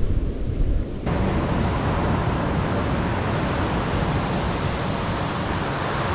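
Ocean surf breaking and washing up a sandy beach, a steady hiss. For about the first second wind buffets the microphone with a low rumble, then the sound changes abruptly to an even, fuller surf hiss.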